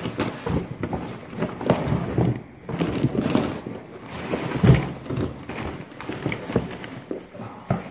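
Items being rummaged through in a cardboard box: bags and wrapping rustling, with objects knocking against each other and the box. There is a louder knock a little under five seconds in.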